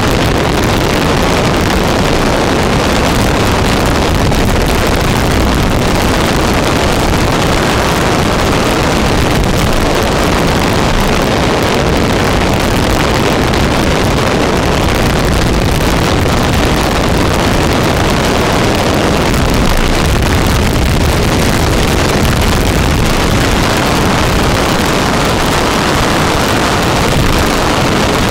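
Powerboat running flat out through chop: a loud, steady rush of wind blasting the bow-mounted microphone, mixed with hull and water noise.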